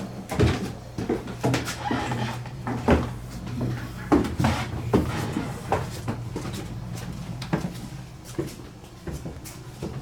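Footsteps thudding and knocking irregularly as people walk down a flight of stairs, over a steady low hum that fades about six seconds in.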